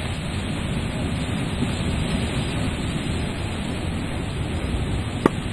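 Sea surf washing and breaking against a rocky shore: a steady rushing noise, heaviest in the low end. A single sharp click near the end.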